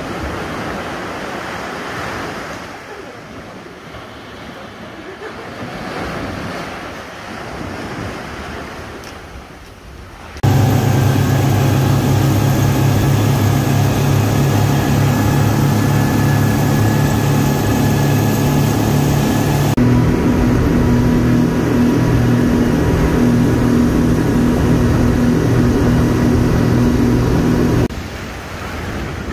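Surf washing up on a sandy beach, then an abrupt switch to a speedboat engine running loud and steady at speed, with wind and rushing water, for about seventeen seconds. Its tone shifts about halfway through, and it ends suddenly as the surf returns.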